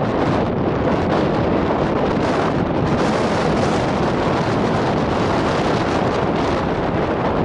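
Wind buffeting the microphone, a steady loud rumble with hiss above it.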